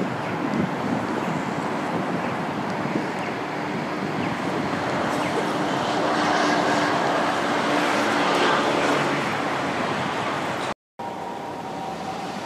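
City road traffic: a steady hiss of cars, with the sound of passing vehicles growing louder and peaking about six to nine seconds in. Just before eleven seconds the sound cuts out for a moment, and a quieter, steadier hum follows.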